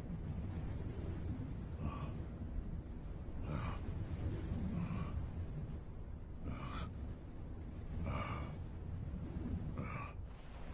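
Laboured, gasping breaths of an exhausted Tarbosaurus, six breaths about one and a half seconds apart, over a steady low rumble.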